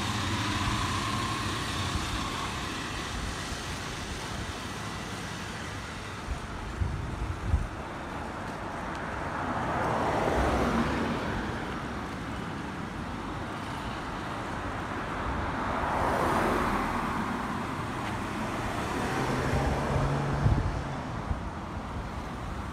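Street traffic: motor vehicles passing on a paved road, each one's tyre and engine noise swelling and then fading, about ten seconds in and again about sixteen seconds in. A couple of brief knocks can be heard.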